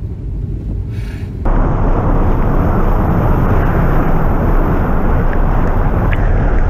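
Small car driving through deep floodwater, heard first as an even rumble; about a second and a half in it becomes a loud, steady rushing of water sprayed up by the front wheel, over a heavy low rumble.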